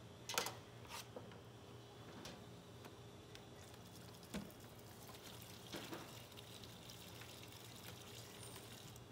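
A few light knocks and clatters of kitchen tools and a plastic cutting board being handled, the loudest about half a second in, over a faint steady hum.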